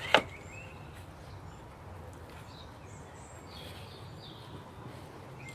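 A single sharp knock right at the start, then faint outdoor ambience with birds chirping faintly here and there.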